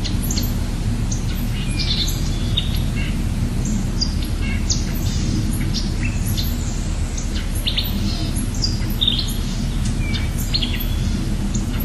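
Songbirds chirping in short, high calls, a few each second, over a steady low rushing noise.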